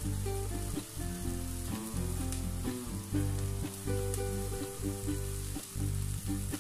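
Diced vegetables sizzling in oil in a nonstick frying pan while a silicone spatula stirs them, under background music with a melody and a repeating bass.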